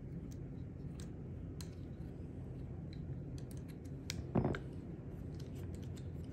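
Small metallic clicks and light knocks of a Planet Eclipse 170R paintball marker's body being worked loose from its grip frame, with one louder dull knock a little over four seconds in.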